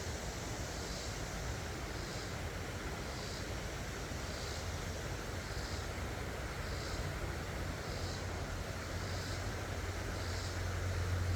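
Steady rush of flowing creek water, with a faint high-pitched chirp repeating about once a second.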